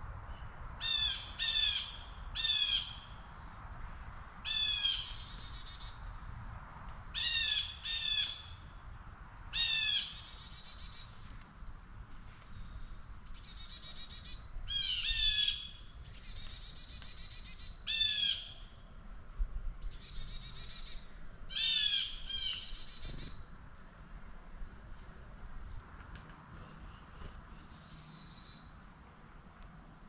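Blue jay giving harsh, squawking calls, about a dozen in ones and twos, the last a little over twenty seconds in. Fainter, higher chirps of other birds come between them.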